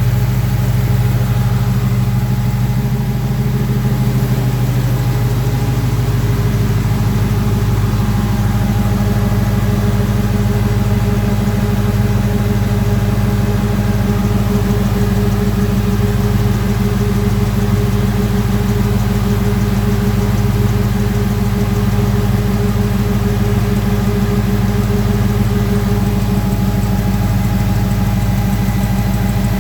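Custom 1984 Oldsmobile Delta 88's engine idling steadily.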